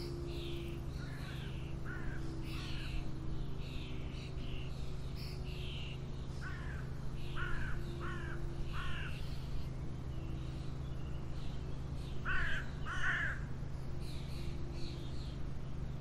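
Outdoor birds calling: a repeated short call in runs of two to four, with a louder pair near the end, over the higher chirping of other birds and a steady low hum.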